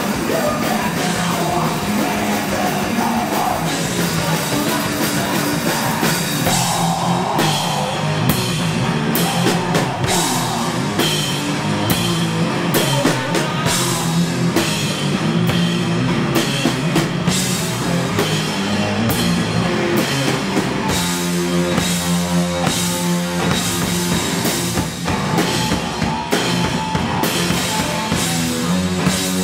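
Live rock duo of electric guitar and drum kit playing loud, with no singing. The drum strikes grow sharper and busier about seven seconds in.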